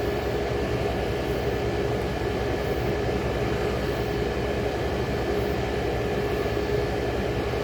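35-year-old General Electric Carry Cool air conditioner running: a steady hum of compressor and fan with a constant tone through it.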